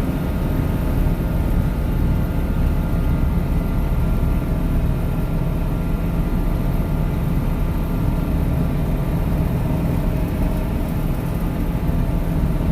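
Kubota M6040 tractor's four-cylinder diesel engine running steadily while towing a loaded hay trailer, a constant drone with no change in pitch.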